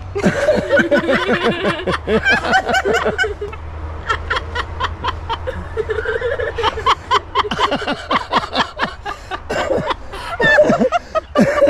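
Laughter in long, rapid runs of short ha-ha bursts, broken by brief pauses.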